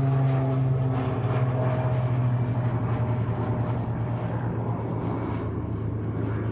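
Propeller aircraft engine droning steadily, its pitch sliding slowly lower as the sound eases off a little.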